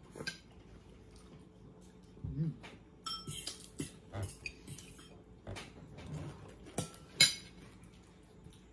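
Metal spoons and forks clinking and scraping against plates and serving bowls in scattered strokes, the sharpest clink about seven seconds in.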